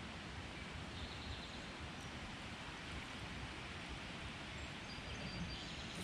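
Outdoor creekside ambience: a steady low rumbling rush, with faint short bird notes now and then, a few more of them in the second half.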